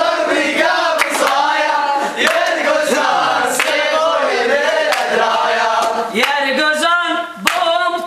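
A group of men singing together in a chant-like song, with scattered hand claps.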